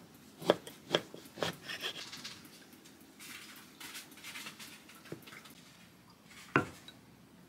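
Kitchen knife cutting through toasted bread and knocking on a wooden cutting board three times, about half a second apart. Then soft rustling of bread being handled, and one sharp knock later on.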